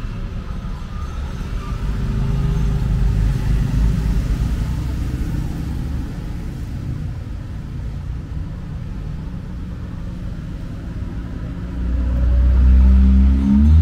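Motor vehicle running with a low rumble and road noise. A louder, steadier low hum comes in near the end.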